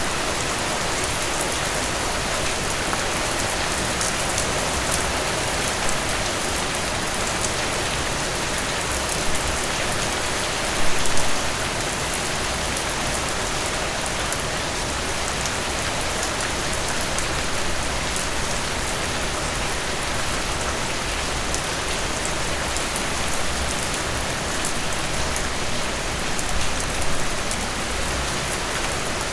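Steady rain falling on a surface, with a dense patter of individual drops. A few brief louder spatters come about eleven seconds in and again near the end.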